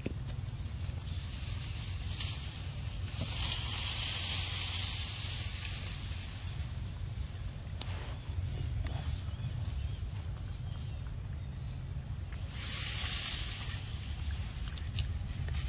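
Outdoor wind noise: a steady low rumble of wind on the microphone, with two gusts of rustling hiss, a few seconds in and again near the end, and a few faint clicks.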